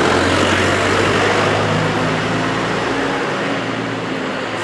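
Steady street-traffic noise with a low engine hum underneath. The deepest rumble drops away a little after three seconds in.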